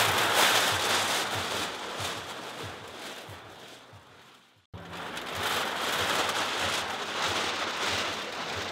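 Many aluminium drink cans on a can-covered costume rattling and clinking together as the wearer moves, a dense pattering clatter that grows fainter over the first four seconds, cuts off abruptly, then resumes.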